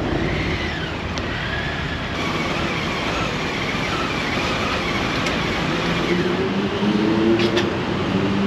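Harley-Davidson Street Bob's V-twin engine idling at a standstill.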